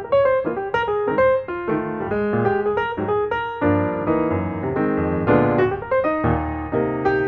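Background piano music: a quick run of notes over lower chords that fill out about halfway in.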